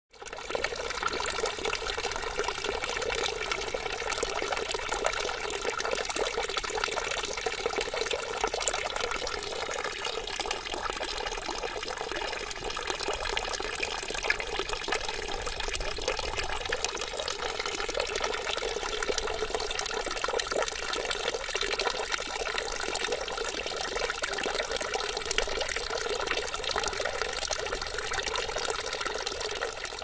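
A water fountain running: a steady flow of water.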